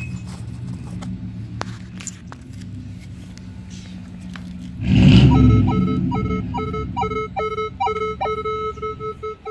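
A low rumble, then a loud handling knock about five seconds in. It is followed by steady electronic tones at several pitches with a short repeating note about two or three times a second, which is the Minelab Equinox 800 metal detector's audio as the coil sweeps over a silver half dollar on edge. In Park 1 mode it gives no diggable signal.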